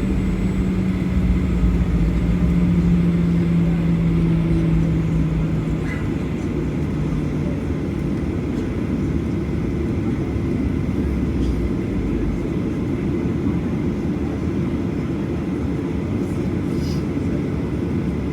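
Boeing 737-800's CFM56 jet engines running at high power with a steady low rumble. A droning tone sinks slightly in pitch over the first several seconds.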